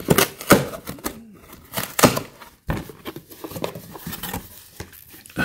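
Cardboard shipping box being opened by hand: flaps pulled back and rubbed, giving irregular scrapes, rustles and sharp crackles, with a few louder snaps in the first half.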